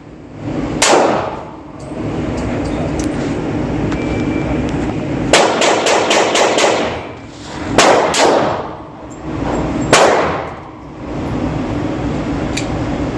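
Glock 20 10mm pistol firing: a single shot about a second in, a quick string of about six shots around the middle, two more shortly after, and a last shot about ten seconds in, each with a ringing tail.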